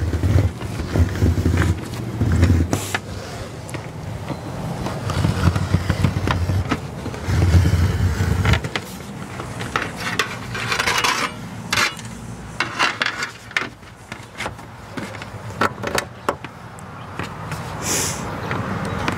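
Knife blade scoring a sheet of aluminium RV siding along a straightedge: scratchy scraping strokes, densest about ten to twelve seconds in, with a few light clicks. A low rumble comes and goes through the first half.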